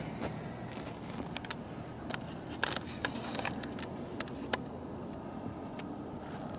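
Handling noise on a handheld camera: a scattering of short clicks and taps, most of them in the middle seconds, over a steady low background rumble.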